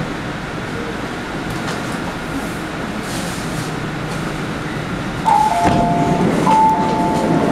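MTR C-Train electric multiple unit running steadily into a station and coming to a stop. About five seconds in, the train's door chime sounds twice, two tones together, as the doors open and the louder platform noise comes in.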